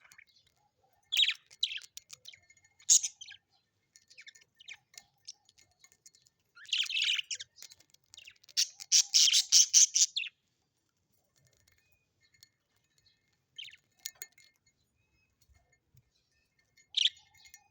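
Birds chirping and twittering in bursts of quick high calls. The busiest stretch is around seven to ten seconds in, followed by a near-silent gap and then two short calls near the end.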